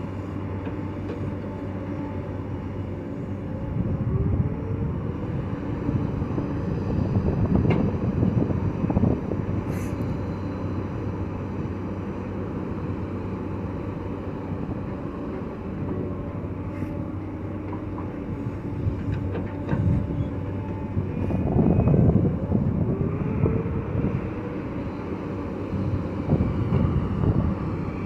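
Heavy earthmoving machinery running, its diesel engine holding a steady hum that swells louder twice, about four seconds in and again about twenty-one seconds in, as the machines work under load.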